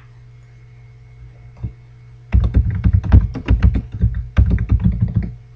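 Typing on a computer keyboard: a single click about a second and a half in, then a quick run of keystrokes for about three seconds.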